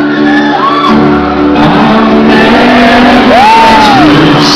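Live rock band playing sustained chords, recorded loud and close from the audience in a hall. High voices shout and whoop over the music, with one long cry rising and falling about three seconds in.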